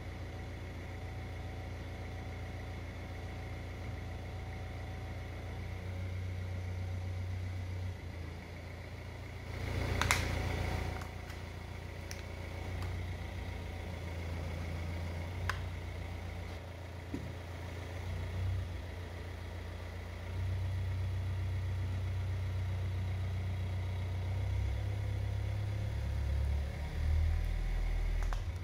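Car engine running at low speed as the car creeps forward, a low steady rumble that steps up and down in level several times. About a third of the way in comes a short, loud crackle, with a few sharp clicks after it.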